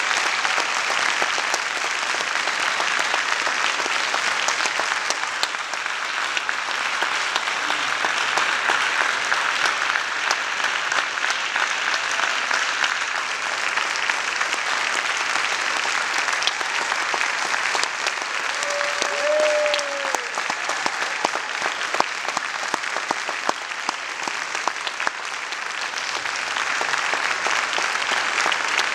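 Audience applauding steadily, a dense patter of clapping throughout. One short call that falls in pitch at its end rises above the clapping about two-thirds of the way through.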